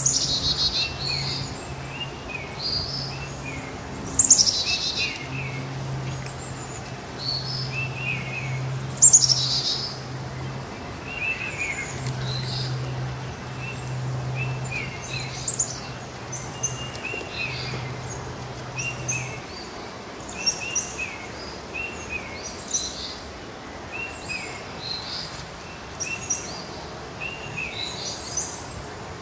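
Songbirds chirping and calling over and over, with two loud downward-sweeping calls about four and nine seconds in. A low steady hum runs underneath and stops about two-thirds of the way through.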